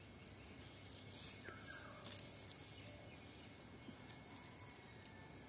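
Faint rustling and light clicks from a nylon cast net being gathered and arranged in the hands, with a sharper rustle about two seconds in.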